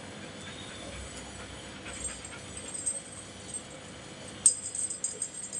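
A golden retriever's collar jingling in short bursts of small metal clinks as the dog moves, the sharpest burst about four and a half seconds in.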